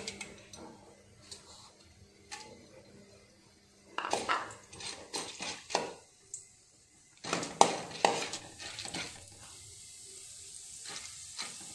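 A steel ladle clatters and scrapes against a metal kadai while stirring chana dal frying in hot oil. It comes in two bouts of strokes, a few seconds in and again about halfway through, over a faint sizzle of the dal in the oil.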